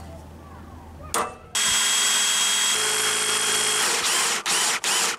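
An electric drill drilling into a motorcycle handlebar. After a click about a second in, it runs at a steady speed with a whine for about two seconds. Near the end it switches to short trigger pulses.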